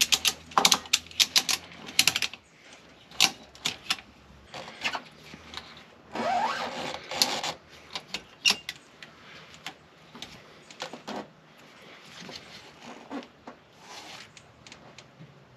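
Ratchet strap being worked: irregular runs of small metal clicks from its ratchet and pawl, with rattles and a short rising squeak about six seconds in.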